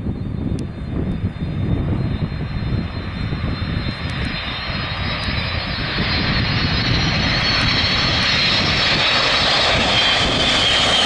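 KC-135R Stratotanker's four CFM56 (F108) turbofan engines on low approach, a jet rumble that grows steadily louder as the aircraft nears, with a high engine whine that falls in pitch near the end as it passes.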